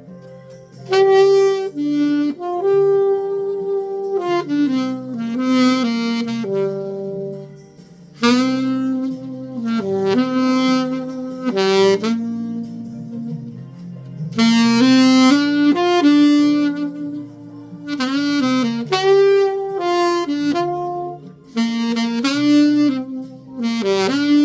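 Selmer Mark VI alto saxophone with a Theo Wanne Lakshmi mouthpiece playing a slow melody in phrases of a few seconds with short breaths between them, recorded dry without added effects. A steady lower accompaniment sits underneath.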